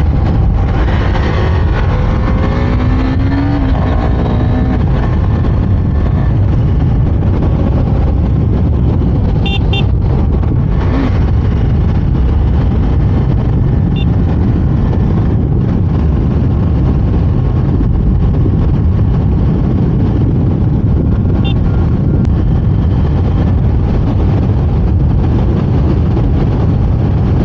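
Wind rushing over the microphone together with a KTM Duke 390's single-cylinder engine as the motorcycle accelerates from town speed to about 90 km/h. The engine rises in pitch in the first few seconds, and a few short high toots, likely horns, come through.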